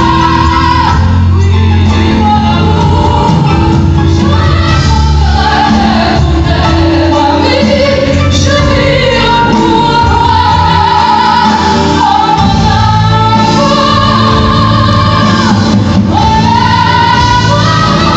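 A woman singing with a live band, holding long notes and sliding between pitches over the band's accompaniment.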